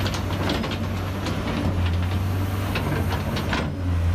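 Large Caterpillar hydraulic excavator's diesel engine running with a steady low drone, with several sharp knocks and clatters as its bucket handles broken rock and concrete.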